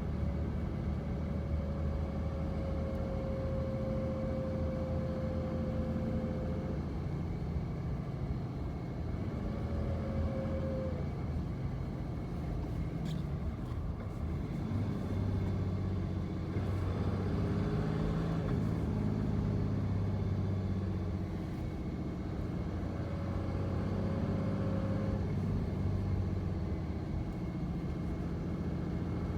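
2005 Dodge Ram's 5.9 Cummins inline-six diesel and drivetrain running, with a thin, siren-like whine that holds for several seconds, drops out, and comes back briefly twice more, plus a lower tone that bends down and up a little past the middle. The owner hears this whine randomly after shifting gear; it began after the driveshaft's center support bearing was changed, perhaps coincidentally.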